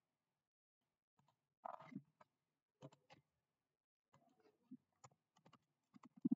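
Near silence with faint, irregular clicks and taps of someone working at a computer, a slightly louder tap near the end.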